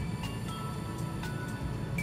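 Background music: short high notes at changing pitches over a low bass, with a light beat about twice a second.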